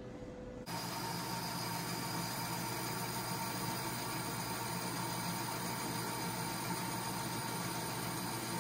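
Metal lathe running with a steel pulley blank spinning in the chuck: a steady mechanical hum with a constant high whine, starting abruptly just under a second in.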